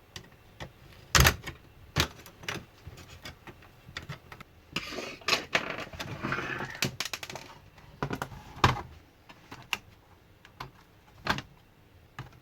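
Plastic laptop casing and parts being handled during disassembly: scattered sharp clicks and knocks, the loudest about a second in, with a stretch of scraping and rustling in the middle.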